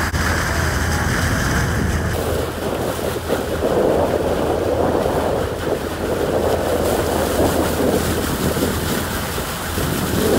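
Boat under way at sea: a steady low engine hum under the rush of bow wash along the hull and wind on the microphone, the wash swelling twice in the middle.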